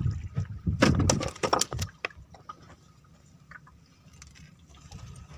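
A quick flurry of slaps and knocks about a second in, as a freshly caught diamond trevally is put down on a small boat's fibreglass deck, over a low wind rumble. After that it is mostly quiet, with a few faint ticks.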